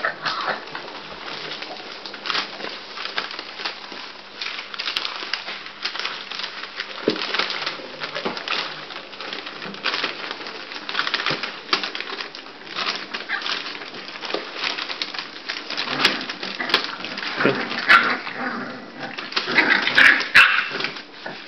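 Five-week-old bulldog puppies whimpering and squealing now and then, over a constant rustle and scratch of paws on newspaper. The loudest squeals come near the end.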